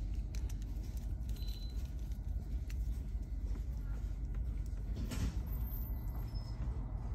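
Steady low background rumble with a few faint clicks and light scrapes of a small screwdriver and wires being worked into a plastic screw-terminal block.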